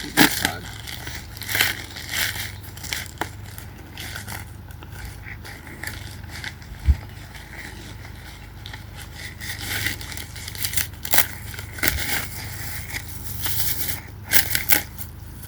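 A package being opened by hand: crinkling, tearing and rustling of packaging with many scattered crackles, and one low thump about seven seconds in.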